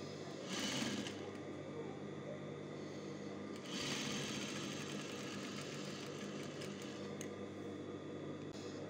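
Sewing machine stitching spunbond fabric, topstitching a side edge, in two short runs: about half a second in and again around four seconds. A steady low hum continues between the runs.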